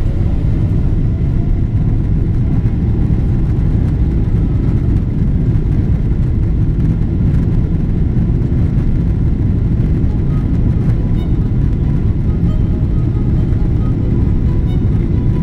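Boeing 777-300ER's GE90 jet engines at take-off power, heard from inside the cabin over the wing as the airliner starts its take-off roll: a loud, steady low rumble. A faint higher whine joins about ten seconds in.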